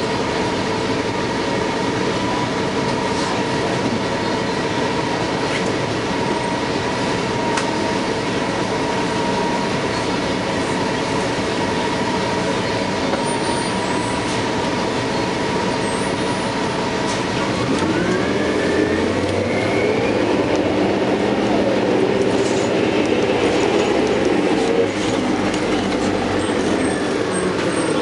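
2000 New Flyer C40LF CNG bus heard from aboard: its Detroit Diesel Series 50G natural-gas engine and Allison B400R transmission run with a steady whine. A little past halfway, several whines rise in pitch and the sound grows a little louder as the bus speeds up.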